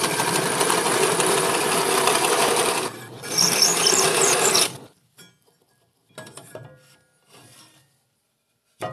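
Drill press driving a 2.5-inch hole saw through a softwood 2x4: a loud, steady grinding cut that dips briefly about three seconds in, resumes, and stops about five seconds in. Then come a few faint knocks and one sharp click near the end.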